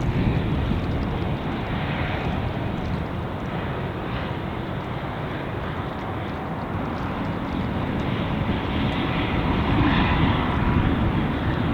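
Diesel train running past with a steady rumble of engine and wheels, swelling slightly near the end.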